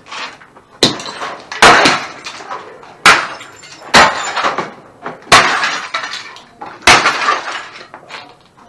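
A steel crowbar smashing down into a heap of broken electronics and glass: about six heavy strikes at uneven intervals, each with a crash of breaking glass and clattering debris.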